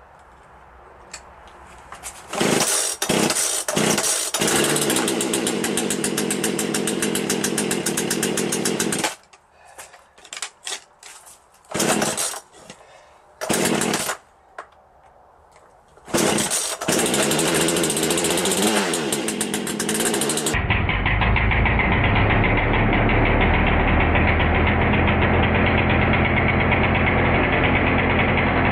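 Two-stroke chainsaw engine being spun up by a brushless three-phase motor coupled to it, running loudly in stretches that cut out and start again several times. In the last third it changes to one unbroken, duller run.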